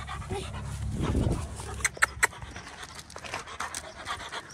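A Doberman panting in short rhythmic breaths, with two or three sharp clicks about two seconds in.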